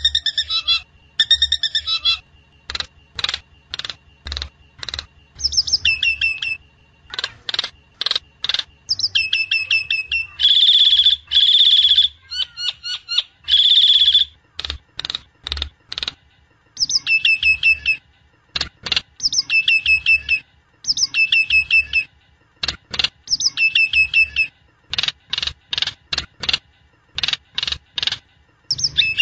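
Jalak nias (myna) song played as a lure recording: repeated short whistled phrases alternate with runs of sharp clicking notes. Two longer, louder harsh calls come near the middle.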